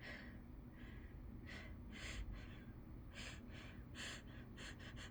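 A person's short, faint breaths, about a dozen, coming closer together near the end: the catching breaths that build up to an induced sneeze.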